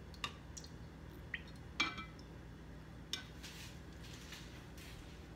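Metal spoon clinking lightly against cookware a few times. The clinks are scattered and quiet; the loudest, just under two seconds in, rings briefly.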